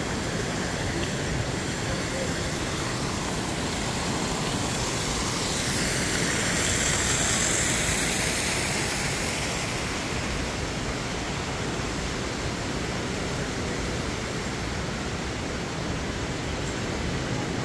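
Splashing of an indoor fountain's water jets over the steady hubbub of a busy airport atrium; the splashing swells, brightest and loudest about seven seconds in, then fades back into the general hubbub.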